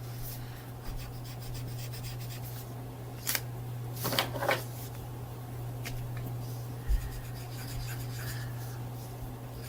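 Pen strokes on paper as a picture is coloured in: light rubbing and scratching, with a few quick, sharper strokes about three to four and a half seconds in, over a steady low hum.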